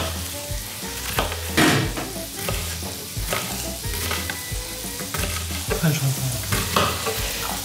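Chopped vegetables sizzling in oil in a frying pan, with a few sharp knocks of kitchen utensils.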